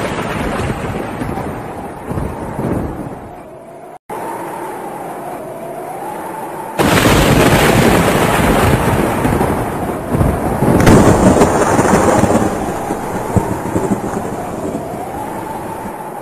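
Storm-force wind rushing and buffeting the microphone in heavy gusts, with a faint wavering whistle underneath. It cuts out briefly about four seconds in and becomes much louder from about seven seconds in.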